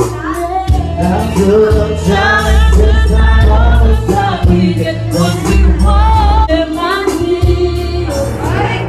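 Woman singing karaoke into a microphone over a loud backing track with a heavy bass line.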